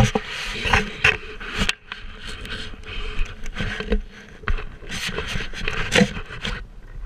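Snowboard scraping and sliding over packed snow in uneven rushes, with scattered sharp knocks.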